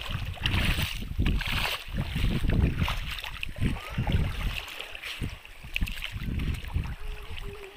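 Seawater sloshing and washing at the shore, with wind rumbling in gusts on the microphone.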